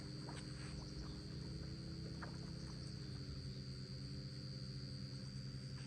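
Steady high-pitched insect trill over a low, steady hum, with a couple of faint ticks.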